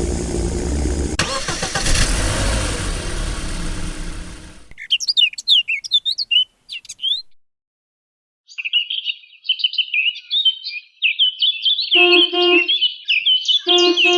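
A loud vehicle rumble that cuts off suddenly about four and a half seconds in, followed by birds chirping and singing, with two short lower-pitched calls near the end.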